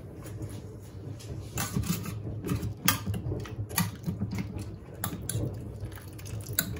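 Scattered metallic clinks and knocks of a wire skimmer and a steel bowl against the stainless-steel mixing bowl of a Monsieur Cuisine Connect as cooked chicken livers are scooped out of the cooking liquid.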